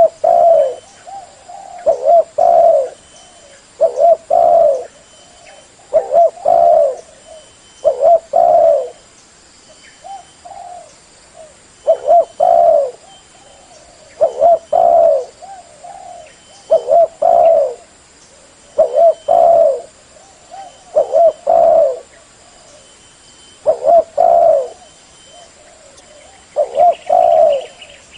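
Spotted dove cooing over and over, a short phrase of two or three coos about every two seconds.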